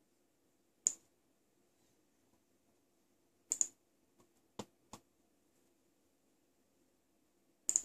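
Computer mouse button clicks: one about a second in, a quick pair around three and a half seconds, two more near five seconds, and a rapid double-click near the end, over a faint steady hum.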